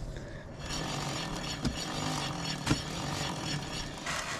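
Aerosol can of Maxima chain wax spraying in a steady hiss onto a motorcycle drive chain, starting about half a second in, with a couple of sharp clicks.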